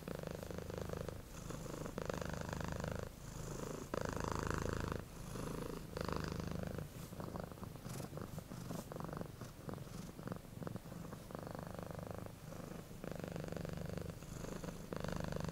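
Domestic cat purring, its rumble swelling and easing with each breath in and out, about once a second.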